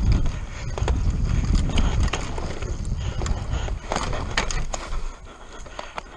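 Mountain bike descending a dirt forest trail at speed: wind rumble on the microphone, tyres on loose dirt, and the bike's frame and chain rattling over bumps in many sharp clicks and clatters. The rumble eases about two seconds in, and it all gets quieter near the end.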